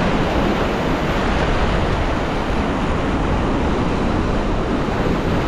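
Ocean surf breaking and washing along the shore, with wind on the microphone: a steady, loud rushing noise.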